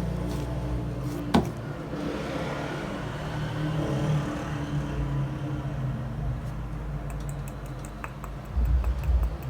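Light handling noises from a small pot of powdered pigment being opened and tapped out over the slime: a sharp click about a second in, soft rubbing, then a run of quick light taps near the end, over a steady low hum.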